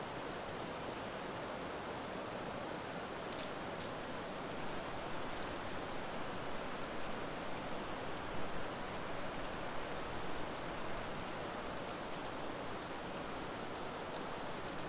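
Steady rushing of flowing river water, with a few faint sharp clicks about three and a half to five and a half seconds in.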